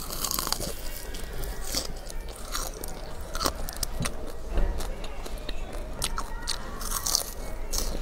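Close-miked crunching of crisp fried pork-fat cracklings (youzuozi) being bitten and chewed, a quick run of sharp crackles.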